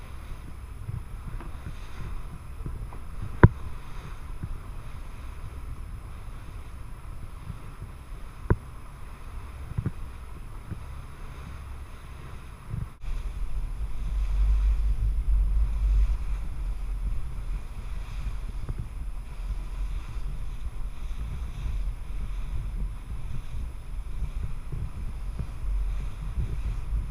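Steady low rumble of wind and a boat at sea, with a sharp knock about three seconds in and another about eight seconds in. After a break about halfway through, the low rumble is clearly louder.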